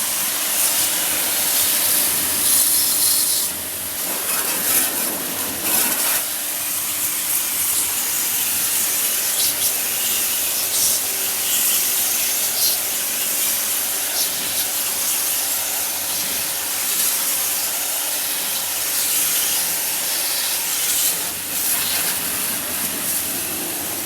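High-pressure water jet spraying from a service pump with a steady hiss, a small pump motor humming steadily underneath.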